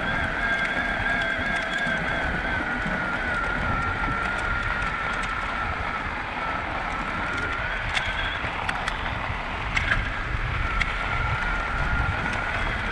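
Electric mountain bike riding over packed snow: the motor's steady whine, drifting slightly in pitch, over tyre and wind noise. The whine fades out a little after halfway and comes back near the end, with a few sharp clicks in between.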